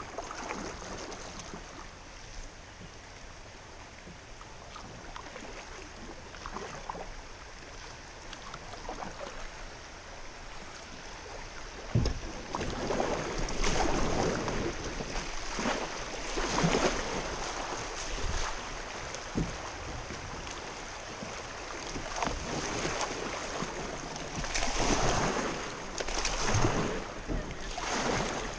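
Kayak running down a shallow riffle: water rushing and splashing around the hull as the paddle dips in stroke after stroke. It is quieter for the first twelve seconds or so, then grows louder, starting with a sharp knock, with a splash every second or two.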